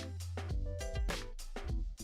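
Background music with drums and a sustained bass note.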